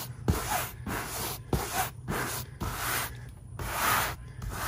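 Horsehair brush scrubbing a wet cloth convertible top lathered with cleaner, a brushing rustle at about two strokes a second.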